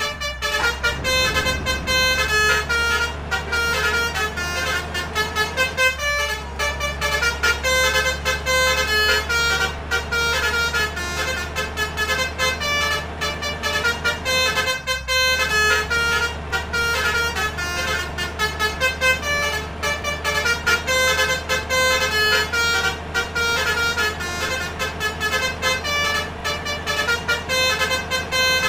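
Multi-tone Indonesian 'telolet' bus horns playing quick melodic runs of notes, one note after another, over the steady low drone of the buses' engines.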